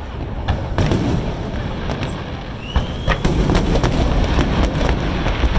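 Aerial fireworks going off: a deep rolling rumble of booms with sharp pops and crackles that come thicker about halfway through, and a short rising whistle just before that.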